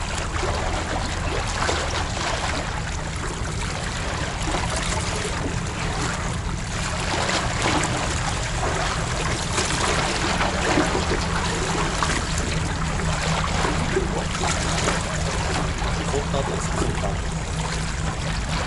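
Seawater sloshing and trickling among the concrete tetrapods of a breakwater, a steady wash with no clear rhythm.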